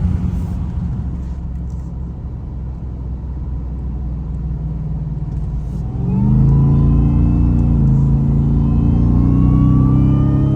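Ford F-150 Raptor R's supercharged V8, breathing through an aftermarket Air Raid intake filter, running with a steady low rumble. About six seconds in it gets louder under acceleration, and a supercharger whine rises slowly in pitch over the engine note.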